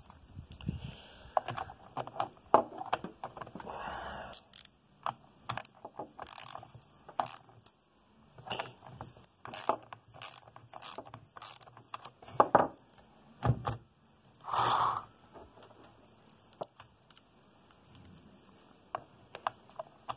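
Metal clicks, clinks and short scrapes as the chainsaw's bar nut is spun on by hand and a combination wrench is fitted and turned on it. The clicks come irregularly, with two brief scrapes, one about four seconds in and one near fifteen seconds.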